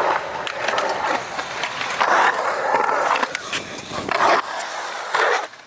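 Skateboard riding on concrete: the wheels roll with a steady hiss, broken by sharp clacks and several louder scraping stretches from the board working the park's surfaces. It drops off near the end.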